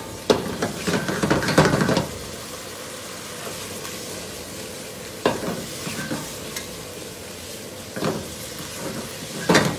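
Spaghetti and diced potatoes tossed and stirred in a sizzling frying pan of oil and pasta cooking water, being tossed to bind into a creamy sauce. A busy flurry of tossing in the first two seconds, then a steady sizzle with a few more tosses about five, eight and nine and a half seconds in.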